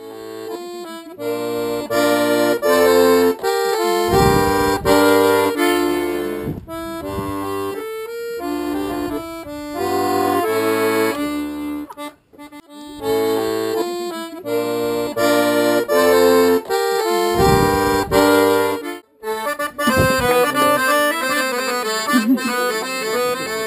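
Live accordion playing a tune, with melody and chords over a rhythmic bass line that breaks off briefly twice. From about twenty seconds in, people clap along with it.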